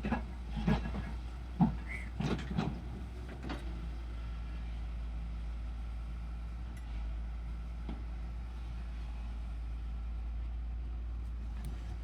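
Heavy construction machine's diesel engine running with a steady low rumble, with a series of metallic knocks and clatters in the first few seconds.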